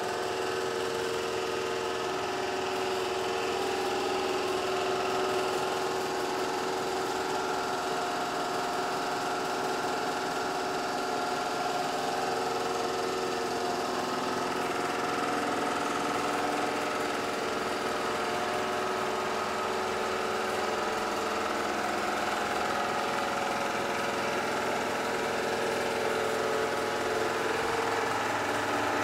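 Two-cylinder belt-drive air compressor, freshly rebuilt with all new parts, running steadily as it pumps the tank back up after some of the air was let out.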